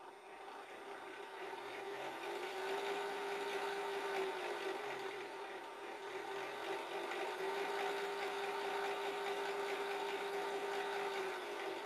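Geared brushless motor of a DIY coil-winding machine spinning the winding spindle, with a steady whine from its roughly 1:10 pinion-and-gear reduction, which runs a bit noisy. It builds up over the first two seconds, and its pitch steps up and back down twice.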